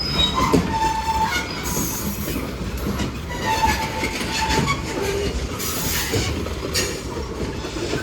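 Freight cars of a Union Pacific manifest train rolling past, with steady wheel-and-rail noise and clatter and short, high wheel squeals about a second in and again around four seconds in.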